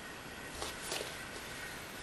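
Quiet room tone: a steady hiss with two small clicks, the first a little past half a second in and the second about a second in.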